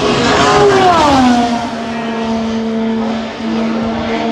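Twin-turbocharged V6 IndyCar engine at full throttle flashing past, its pitch dropping steeply as it goes by, then settling into a steady drone as it runs on down the track.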